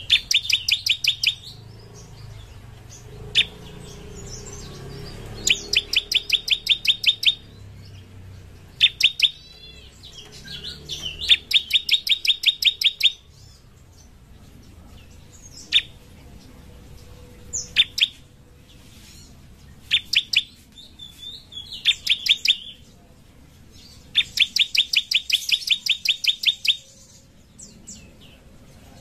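Bar-winged prinia (ciblek) singing: rapid runs of sharp, repeated chirps, about eight a second, in bursts of one to three seconds, with single sharp notes between them.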